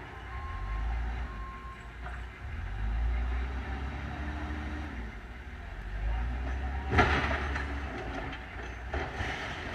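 Heavy diesel machinery, plausibly the backhoe, rumbling with a whine that rises and falls, and a loud crash about seven seconds in with a smaller one near the end. Two short beeps of a backup alarm sound in the first two seconds.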